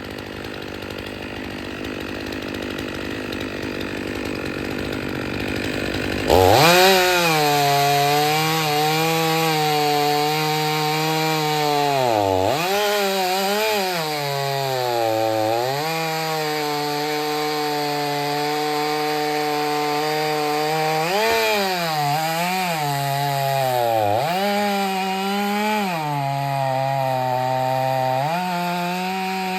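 A steady rushing noise grows louder, then about six seconds in a chainsaw's engine note starts abruptly. The saw runs at high revs cutting firewood, its pitch dipping again and again as it loads up in the wood.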